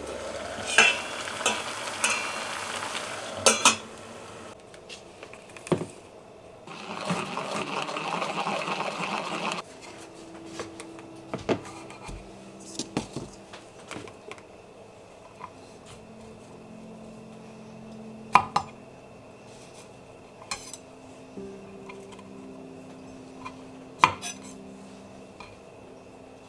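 Kitchen work sounds: a stainless-steel pot and its lid clinking over a steady hiss for the first few seconds, and another few seconds of steady hiss about seven seconds in. Then a knife cuts steamed broccoli on a wooden cutting board, with scattered sharp knocks.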